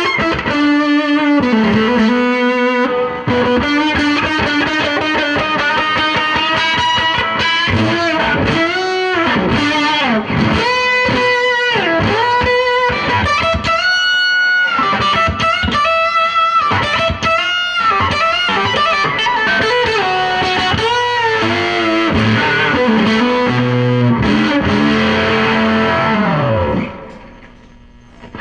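Electric guitar played through a fuzz pedal: a distorted lead line of bent and sustained notes that dies away near the end.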